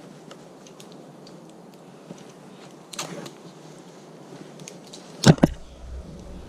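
Close handling noises from hands-on bicycle work: a brief rustle about three seconds in, then two sharp knocks in quick succession just past five seconds, the loudest sounds.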